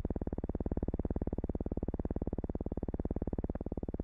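Low, steady buzzing drone with a fast, even pulse, consistent with flying-boat engines running at speed for takeoff on the film's soundtrack.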